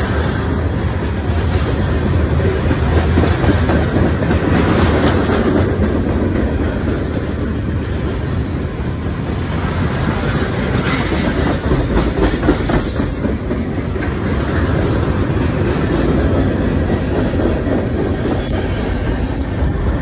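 CSX freight train's covered hoppers and tank cars rolling past close by: a steady, loud rumble, with wheels clicking over rail joints, most plainly around the middle.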